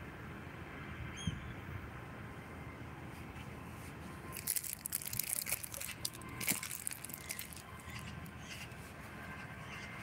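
Birds chirping, with a quick flurry of high, sharp calls for about three seconds around the middle, over a steady low background hum.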